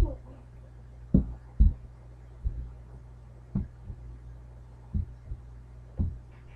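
Dull thumps of children's feet stepping and stomping on a carpeted floor during a boxing footwork drill, about nine at uneven intervals, over a steady low electrical hum.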